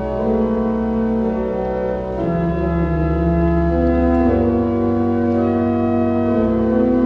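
Pipe organ playing slow, held chords over a sustained bass note. The chords change about every two seconds.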